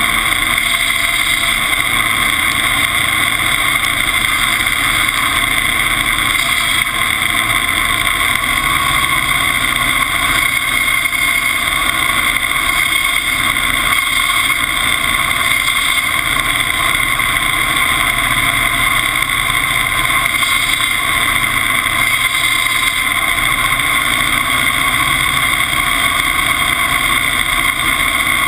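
Timberjack 201 skidder's engine running steadily under load as it drives and tows, heard close beside its upright exhaust muffler.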